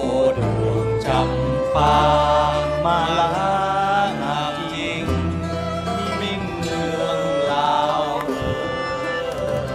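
Live acoustic folk band playing: strummed acoustic guitars and a banjo-style lute under a held melody line that bends in pitch.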